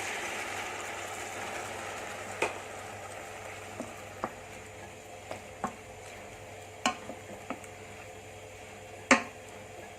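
Pan of mushrooms and vegetables sizzling after half a cup of water is poured in, the hiss dying down as the water comes to a simmer. Scattered sharp ticks run through it, with a louder knock about nine seconds in.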